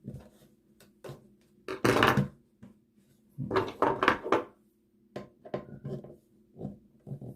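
Hand work on a wall switch and its cover plate: scattered clicks and taps, and two louder scraping, rustling stretches, over a faint steady low hum.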